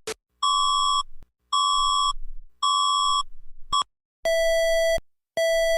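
Electronic alarm beeps from an EAS-style emergency alert: three higher beeps, each about half a second long and about a second apart, a short blip, then lower-pitched beeps at the same pace.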